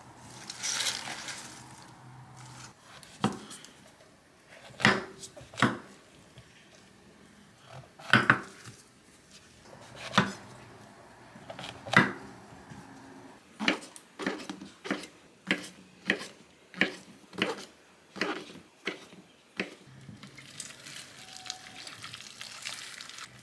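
Kitchen knife cutting king oyster mushrooms on a wooden chopping board: separate sharp chops, irregular at first, then a steady run of nearly two a second. Near the end, hot water pours from a kettle over the cut mushroom strips to blanch them.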